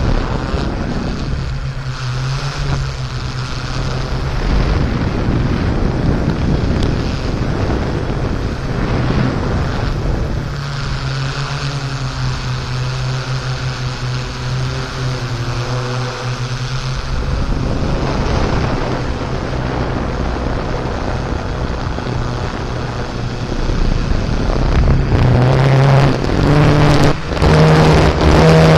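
Quadcopter drone's motors and propellers humming steadily, with wind noise on the microphone. The hum steps up in pitch and gets louder about 25 seconds in.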